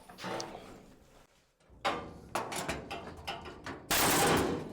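Irregular sheet-metal knocks and scrapes as the rusty floor pan is worked against the cab, which is still held by a spot weld. Near the end comes a loud, steady rush of noise lasting under a second that stops sharply.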